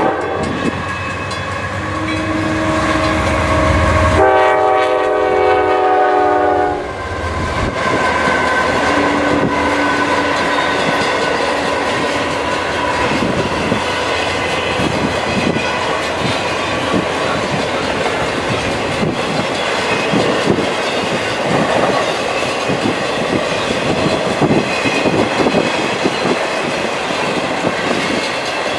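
CSX double-stack intermodal freight train passing. The locomotive's air horn sounds a chord of several notes near the start, longest and loudest from about four to seven seconds in. After that come the steady rumble and rhythmic clatter of the container cars' wheels rolling by on the rails.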